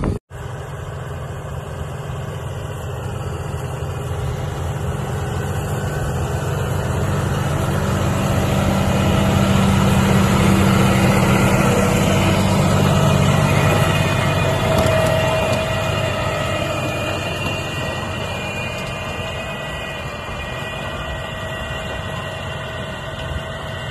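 Tractor's diesel engine running steadily under load as it pulls a tillage implement through dry soil, growing louder for the first ten seconds or so and then fading as the tractor moves away.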